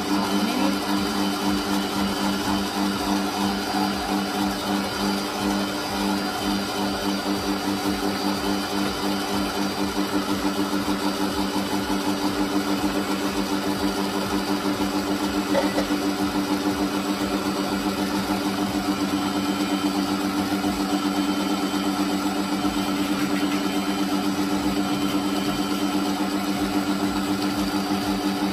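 Electric stand mixer running steadily at one speed, its twin beaters whipping egg whites and caster sugar into meringue.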